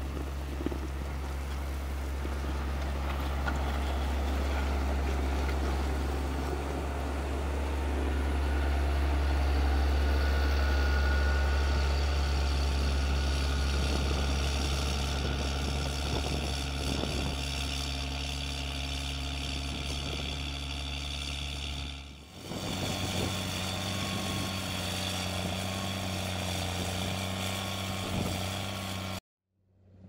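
John Deere 670G motor grader's six-cylinder diesel engine running steadily under load as the grader works gravel, a deep drone that swells midway. About three-quarters of the way in, the drone drops briefly and returns at a different pitch. The sound cuts off abruptly just before the end.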